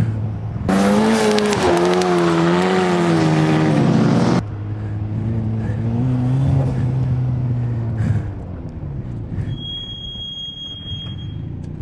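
Exocet's turbocharged 1.8-litre Mazda BP four-cylinder engine, with a loud burst of engine and tyre noise whose pitch wavers for about four seconds. It then settles into a steady low note at low revs and grows quieter after about eight seconds. A high steady beep sounds for about two seconds near the end.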